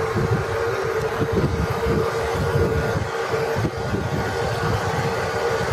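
Wind buffeting the microphone in gusts, a shifting low rumble, over a steady mid-pitched hum.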